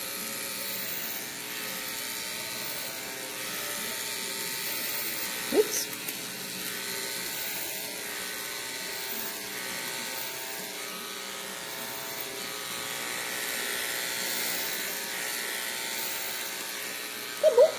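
Electric dog grooming clipper running steadily while it clips a dog's thick, curly coat.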